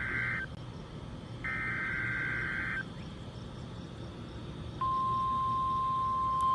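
NOAA Weather Radio alert activation over a radio receiver: buzzy screeching bursts of SAME digital header data, one ending just after the start and another of about a second and a half after a pause. About five seconds in, the steady 1050 Hz warning alarm tone comes on, the signal that sets off weather alert receivers, here sent as a weekly test.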